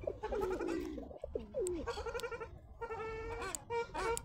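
Ruddy shelducks calling: a run of repeated honking calls, several falling in pitch and one held steady near the end.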